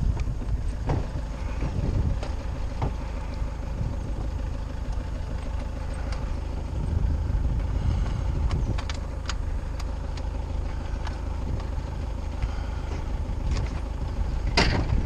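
Pickup truck engine running with a steady low rumble, with scattered knocks and rattles and a louder knock near the end.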